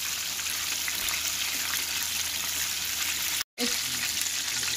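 Battered chicken pieces deep-frying in a pan of hot oil: a steady, dense sizzle. It breaks off to silence for a moment about three and a half seconds in, then carries on.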